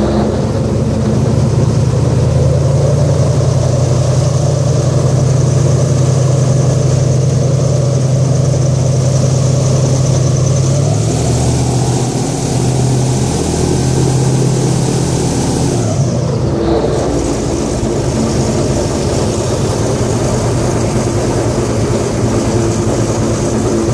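An airboat's engine and air propeller running loud and steady. The engine note shifts down for a few seconds about halfway through, then settles again.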